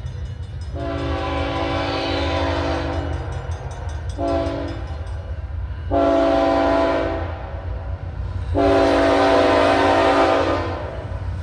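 Norfolk Southern locomotive's air horn sounding a horn salute: four chords, long, short, long, long. A steady low drone of the approaching train runs under them.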